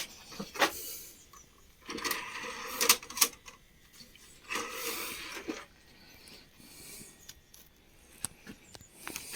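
Plastic clicks and rattles from a CD being handled and loaded into an old PC's disc drive, with two short stretches of rustling noise.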